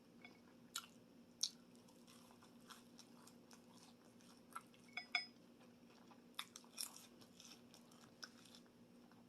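Quiet mouth sounds of a person chewing food close to the microphone: soft wet clicks and smacks scattered through, a few louder ones, over a steady low hum.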